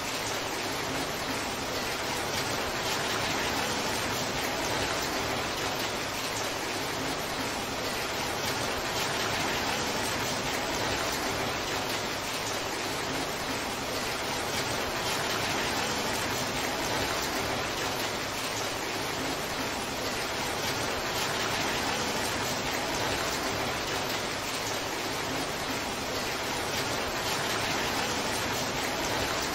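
Torrential downpour: heavy rain falling steadily as a dense, even hiss that never lets up.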